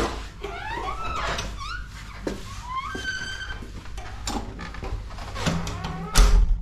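A run of clicks and knocks mixed with short, high rising squeaks, ending in a loud thump about six seconds in.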